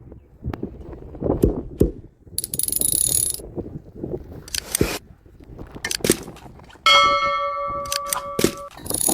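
Irregular knocks and scraping, with two short bursts of hiss, then a struck metal object ringing for about a second and a half near the end.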